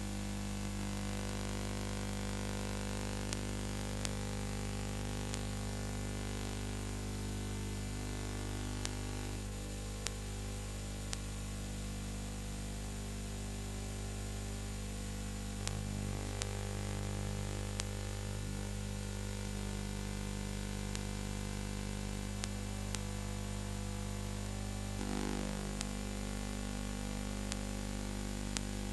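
Steady electrical mains hum and hiss with scattered short clicks: background noise of the transfer of a silent film, with no recorded soundtrack.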